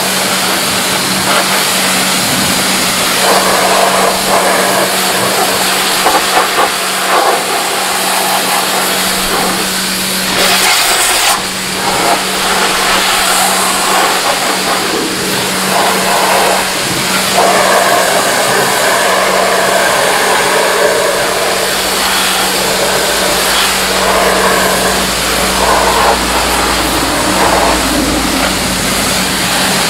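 Pressure washer running with a steady hum while its water jet hisses against a mud-caked car's bodywork. The hum drops out for about a second about eleven seconds in, then resumes.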